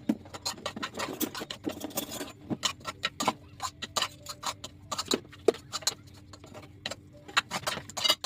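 Rapid, irregular clicks and light taps, with a faint steady hum underneath.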